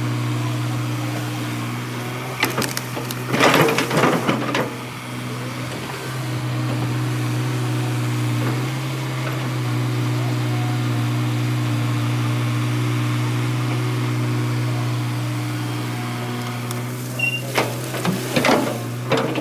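Tata Hitachi EX200 excavator's diesel engine running with a steady low drone, broken twice by short rough bursts of noise, about three seconds in and near the end.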